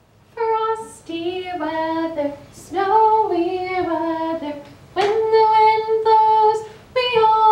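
A woman singing a simple children's song alone, without accompaniment, in short phrases of held notes.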